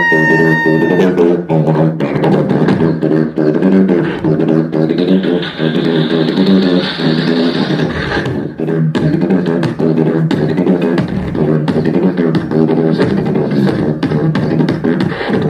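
Live beatboxing in a drum-and-bass style: a fast, dense rhythm of mouth-made kicks and snares over a pulsing, buzzing vocal bass line. A held whistle-like tone fades out about a second in.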